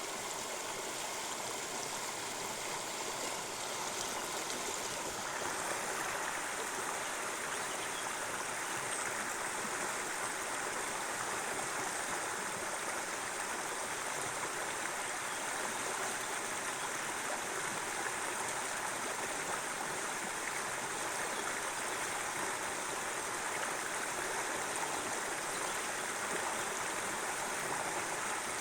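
Ardèche river water flowing: a steady, even rush that becomes fuller about five seconds in.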